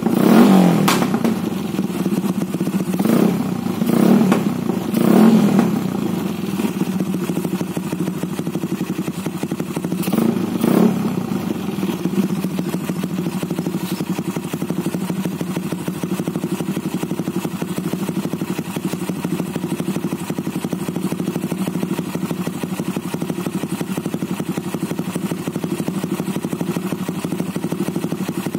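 Yamaha 135LC's single-cylinder four-stroke engine running just after a cold start. The throttle is blipped several times in the first eleven seconds or so, then the engine settles into a steady idle.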